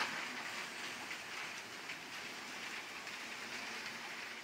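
Motorised Lego trains running on plastic track: a steady whirring rattle of the small electric motors and the wheels over the track.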